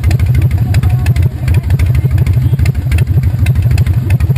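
Motorcycle engine idling with a steady, rapid low pulse.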